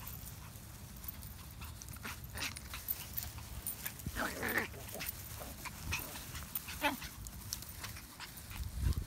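Two small dogs play-fighting in grass: scuffling and rustling of paws, grass and leashes, with a short dog vocalisation about four seconds in and a fainter one near seven seconds.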